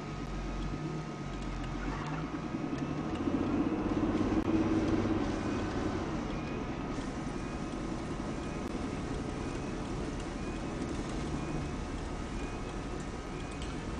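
Car cabin noise while driving: steady engine and road rumble with a thin, steady whine above it. The rumble swells for a couple of seconds about four seconds in.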